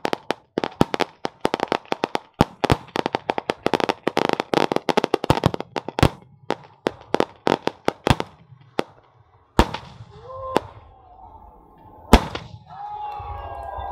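A string of firecrackers hung from a giant paper hot-air balloon going off in the air: a rapid, dense crackle of bangs that thins after about nine seconds to a few single loud bangs.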